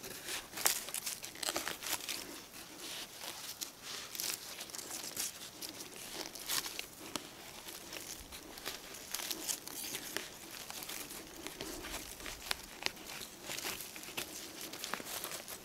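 Thin metal digging tool scraping and prying in dry, crumbly soil and leaf litter, making irregular scratchy crunches and crackles as the dirt around a ginseng root is loosened.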